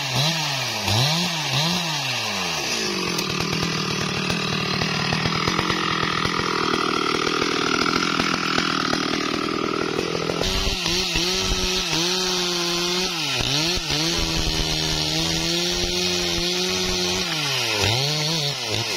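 Stihl MS382 two-stroke chainsaw cutting through a wadang log. Its engine speed swoops up and down several times at first, then holds under load in the wood. After an abrupt change about halfway, it runs at high speed with a few brief dips.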